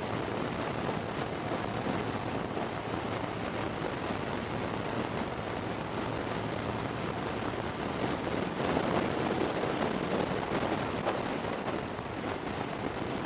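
Gusty wind rushing over the microphone of a motorcycle on the move, a steady roar with no distinct engine note, swelling louder for a couple of seconds about two-thirds of the way through.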